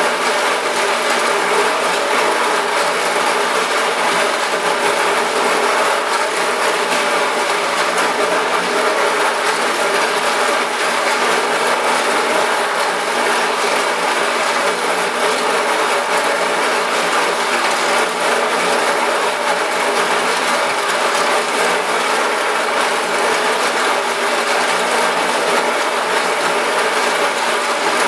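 Steady grinding and rasping of 46-grit silicon carbide slurry between a rotating glass meniscus blank and a metal ring trepanning tool, with a steady hum from the turntable drive underneath. The grit is wearing the metal tool and cutting into the glass at about the same rate.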